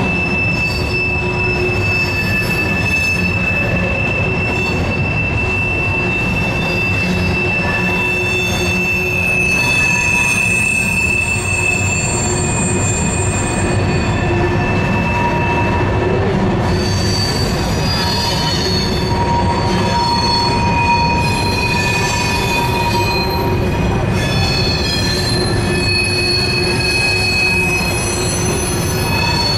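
Freight train of covered hopper cars rolling across a steel girder bridge: a steady rumble of wheels on rail with long, high-pitched wheel squeals that hold for several seconds and shift from one pitch to another.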